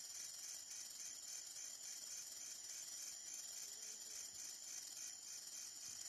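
Steady high-pitched drone of a forest insect chorus, with a fainter pulsing trill repeating a few times a second beneath it.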